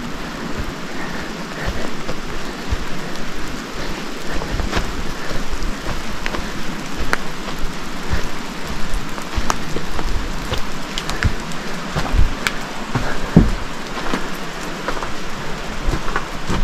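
Steady rain falling, with many sharp taps of single drops striking close by, and a few low thumps in the second half.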